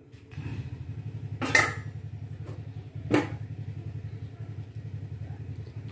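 A steady low hum, slightly pulsing, starts abruptly just after the beginning. Two sharp knocks or clicks stand out over it, about a second and a half in and again about three seconds in.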